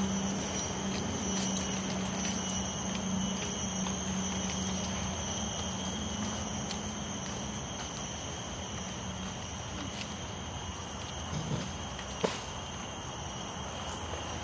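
Steady, high-pitched insect drone from the surrounding forest, several pitches sounding at once, with a low hum under it over the first several seconds. A single sharp click stands out about twelve seconds in.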